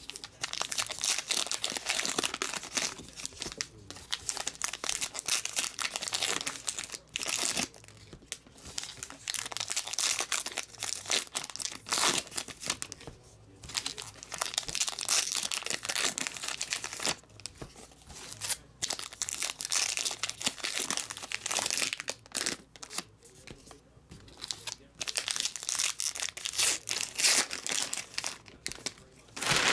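Trading-card pack wrappers torn open and crinkled by hand, in repeated bursts of a few seconds with short pauses between packs.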